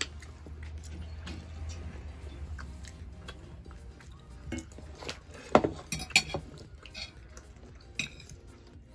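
Metal cutlery clinking and tapping against plates and a skillet at a dining table: scattered light clinks, with a cluster of sharper ones about halfway through and another near the end.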